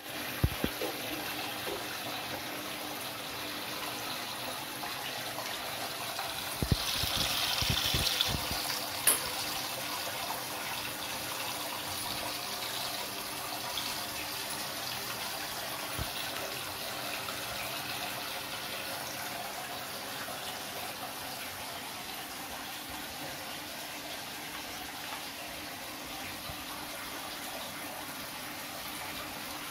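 Small frog fountain running: a thin stream of water pouring from the frog's mouth and splashing steadily into the water in its basin. It is briefly louder and brighter about seven seconds in, and there are a few light knocks.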